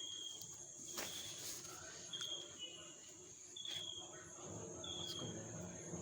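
Short high chirps repeating about every second and a half over a steady high-pitched whine, like a cricket, with a few faint clicks of engine parts being handled.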